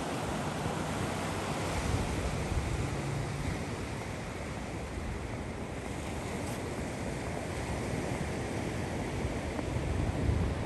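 Sea surf washing steadily, with wind buffeting the microphone in low rumbles that grow stronger near the end.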